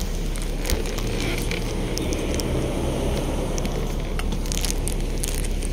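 Steady low rumble and hum inside a coach bus, with scattered short clicks and rustles close to the microphone.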